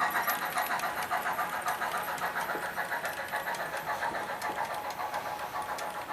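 HO-scale model freight train running past on the layout track, making a fast, even clicking rhythm that slowly fades as it moves away.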